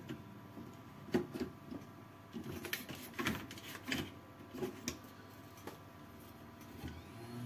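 Workbench handling noise: scattered light clicks, taps and scrapes of small tools and a circuit board being handled, irregular and spread over several seconds.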